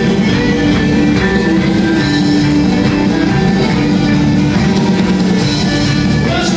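Celtic rock band playing live at concert volume: fiddle over strummed guitars, with a drum kit keeping the beat.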